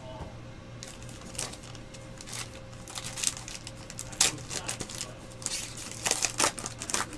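Foil trading-card pack wrapper and cards crinkling and rustling in the hands: a series of short, irregular rustles, sharpest about four seconds in and again around six seconds.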